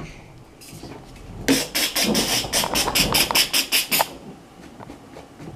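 Air freshener sprayed in a rapid run of short hissing bursts, about six a second, for about two and a half seconds, starting about a second and a half in.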